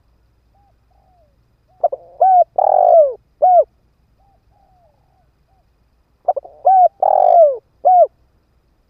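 Spotted dove cooing twice in loud phrases. Each phrase is a few quick clipped coos, one longer coo that falls in pitch, and a last short coo, with soft low coos in the pauses between.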